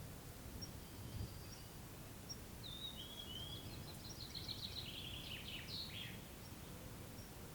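Songbirds in a forest clearing: a faint high note repeats about once a second, and from about two and a half seconds in a closer bird sings one phrase of quick trilled notes lasting about three and a half seconds. A steady low outdoor rumble runs underneath.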